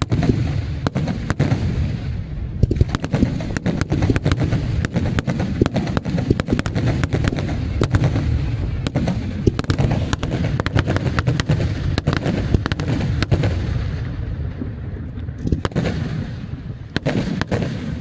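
Aerial fireworks going off in rapid succession: many sharp pops and bangs over a continuous low rumble, thinning briefly a few seconds before the end.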